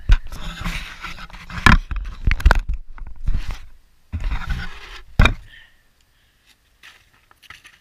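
Boots crunching and scraping on snow-covered lake ice, and the camera being handled, with several sharp knocks, the loudest about five seconds in. The sounds stop after about five and a half seconds.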